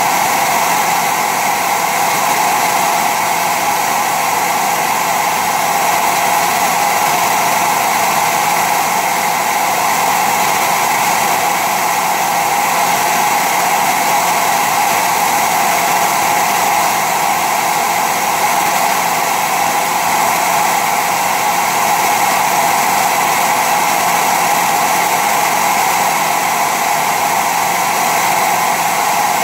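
Cutaway model of a steam locomotive cylinder and slide-valve gear running: a loud, steady whir from its moving mechanism, with no change in pace.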